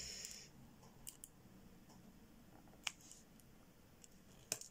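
A few short, sharp clicks of a diamond-painting placer pen pressing resin drills onto the canvas, spaced irregularly, the loudest near the end. A soft rustle dies away in the first half second.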